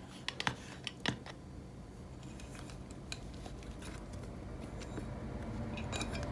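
A few light clicks and taps of trading cards in plastic holders being handled: a quick cluster about a second in, scattered ticks after, and a few more near the end, over a low steady room hum.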